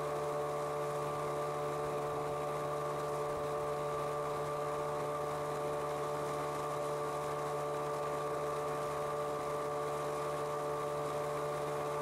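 Motorboat's outboard motor running at a steady cruising speed, an even drone that does not change, heard from aboard the moving boat.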